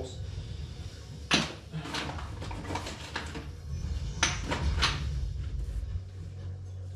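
Kitchen cupboard and its contents being handled during packing: a few sharp knocks and clunks spread over several seconds, over a steady low hum.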